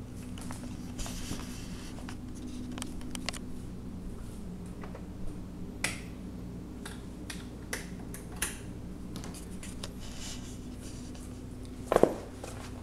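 Cardboard soda-can case scraping and crinkling as a cat and kitten wrestle in and on it, with scattered light clicks and scratches of claws. A louder thump comes near the end, over a faint steady hum.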